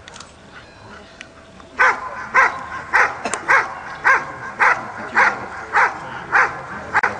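A black German Shepherd barking steadily at a helper standing still in front of it. These are the guarding barks of the IPO protection work after the dog has released the sleeve. The barking starts about two seconds in, with about ten sharp barks at an even pace of roughly two a second.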